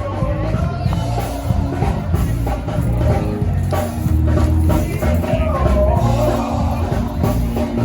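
Rock music with a drum kit and heavy bass, a melody line wavering above it.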